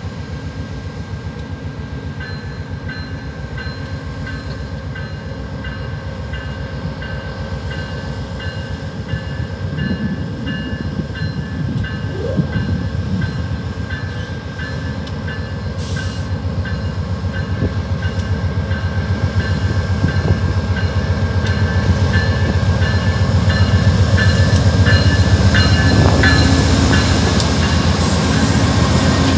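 GE P42DC diesel locomotive's V16 engine working hard as it pulls a passenger train away from a station, growing louder as it draws near and passes close by. A high, evenly repeating ring sounds above the engine throughout.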